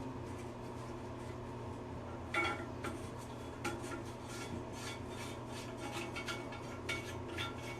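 Plastic toilet-tank parts scraping, rubbing and clicking as they are worked loose by hand, with a sharper knock about two and a half seconds in, over a steady low hum.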